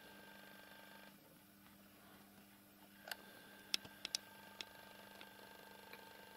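Near silence: a faint steady hum, with a handful of small sharp clicks between about three and five seconds in.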